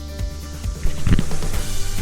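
Background music with a steady kick-drum beat about twice a second over held synth tones, swelling louder about a second in.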